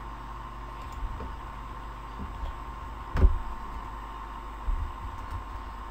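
Steady microphone background hum with a faint thin tone, broken by a few dull low thumps and one sharper knock a little past three seconds in: keyboard key presses and desk knocks picked up by a desk microphone.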